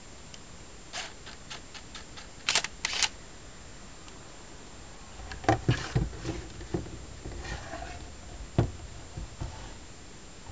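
Minolta Maxxum 400si 35mm autofocus film SLR being operated: a few small clicks, then two short, loud mechanical bursts from the camera, followed by a series of knocks and thumps as it is handled and set down on a wooden table.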